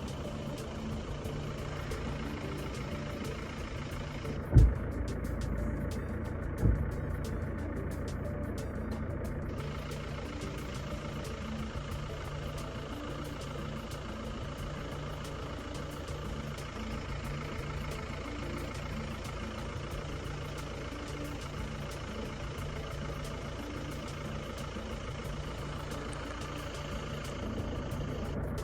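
A steady low mechanical hum, with two sharp thumps about two seconds apart, the first and louder one about four and a half seconds in.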